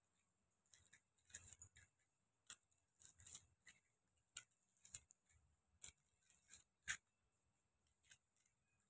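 Faint, scattered crinkles of paper cupcake liners being pulled apart and set into a muffin tin, about one every half second to a second.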